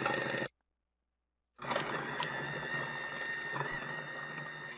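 KitchenAid 13-cup food processor motor running as it cuts onion, stopping abruptly about half a second in. After about a second of dead silence it runs again with a steady whine and a couple of faint clicks.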